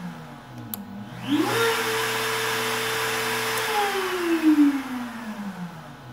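Relay click, then the CNC's spindle router motor spins up with a rising whine, runs steadily for about two seconds, and winds down with a long falling whine as the relay cuts its power.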